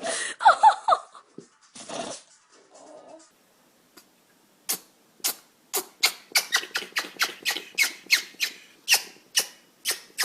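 A small pet sneezing over and over: a fast run of about twenty short, sharp sneezes, quickening to two or three a second, starting about halfway through. Near the start there is a brief squeaky sound.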